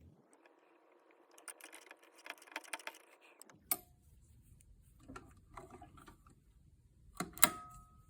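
Scattered small clicks and taps of handling sewing tools and fabric, ending with one sharp metallic clink near the end that rings briefly.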